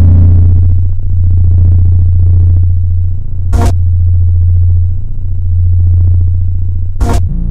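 A loud, steady low-pitched tone of about 100 Hz, played at full phone volume to shake water out of a phone speaker. Its loudness dips slightly now and then, and there is a short click about three and a half seconds in and another near the end.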